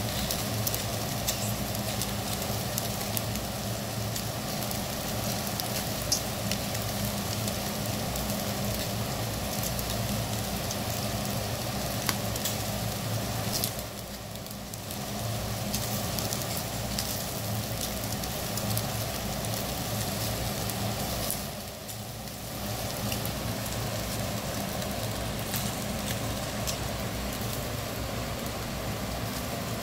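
Eel pieces sizzling on a wire grill over charcoal, a steady hiss with scattered small pops and crackles, over a steady low hum. The sizzle drops away briefly twice, about halfway through and again about two-thirds through.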